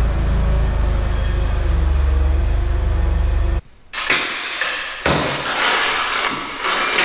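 Forklift engine running steadily, then cutting off suddenly about three and a half seconds in. After that, a few metal clanks and rattles as a chain is hooked onto a heavy steel axle arm on a truck's flatbed.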